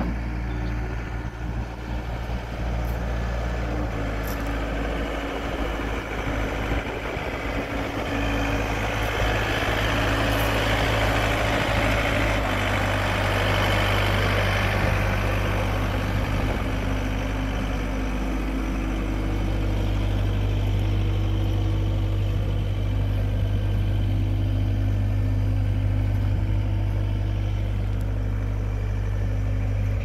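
John Deere 320 skid steer's diesel engine idling steadily, a little louder around the middle.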